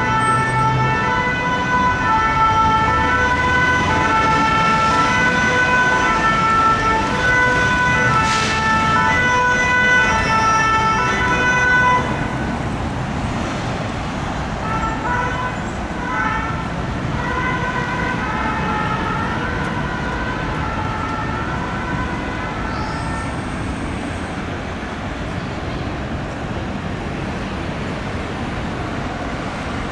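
Paris fire brigade rescue ambulance's two-tone siren, stepping back and forth between two notes. It is loud for about the first twelve seconds and drops suddenly. A fainter two-tone siren then runs until about two-thirds of the way through, after which only city traffic noise remains.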